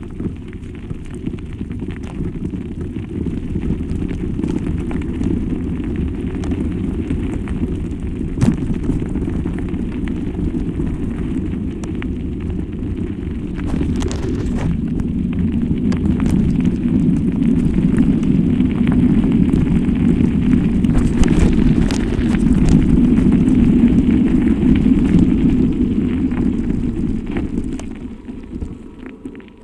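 Wind and motion noise on the microphone of a moving camera: a loud, steady low rumble with scattered clicks and a sharper knock about a third of the way in. It grows louder in the second half and eases off near the end.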